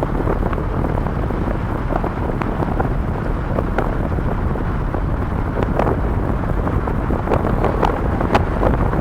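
Strong wind buffeting the microphone: a loud, steady low rumble with frequent brief crackling gusts.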